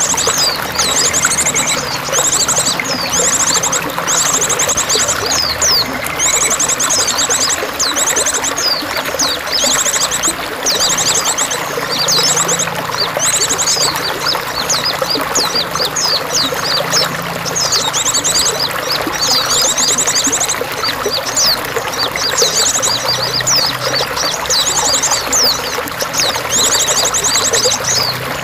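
Steadily pouring, trickling water with a songbird singing over it: short bursts of very fast high trills that alternate with quick sweeping whistled notes, repeated every second or two.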